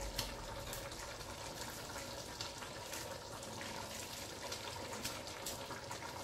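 A pot of soup simmering on the stove: a soft, steady bubbling hiss, with faint light ticks as handfuls of spinach drop in.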